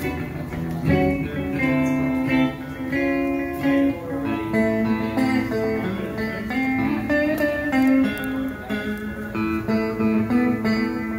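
A guitar played live by a solo performer: a run of picked notes and chords that keep changing in pitch.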